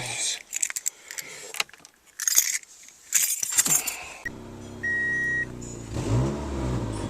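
Keys jangling, then the 2003 Pontiac Vibe's four-cylinder engine starts about four seconds in and runs with a short beep, then is revved up and down near the end. The exhaust is noisy from a hole punched in the pipe: an exhaust leak.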